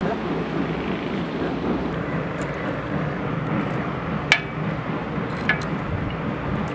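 A steady low outdoor rumble with two sharp clicks about a second apart near the middle, from a knife scraping small anchovies being cleaned by hand.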